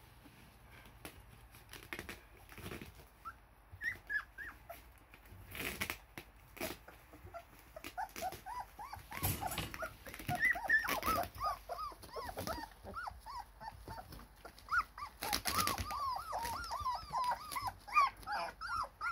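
Litter of three-week-old rough collie puppies whimpering and squeaking in short high calls that come more and more often from about halfway through: hungry pups begging their mother for milk. A few brief knocks and rustles come in between.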